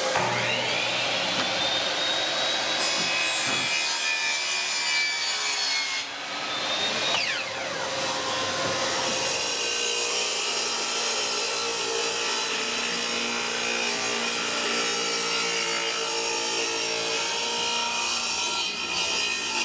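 Saw cutting through wood, a steady continuous rasp.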